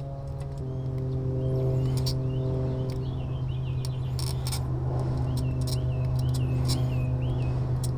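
Birds chirping in short repeated calls over a loud, steady low drone, with a few scattered sharp clicks.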